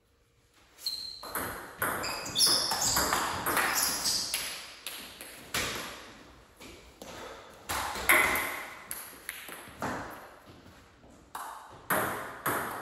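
Table tennis ball in a rally, struck by the paddles and bouncing on the table: an irregular series of sharp, ringing clicks starting about a second in.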